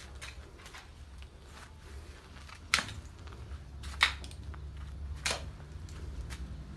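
Pickaxe chopping into packed earth, three sharp strikes about a second and a quarter apart, with lighter knocks between them.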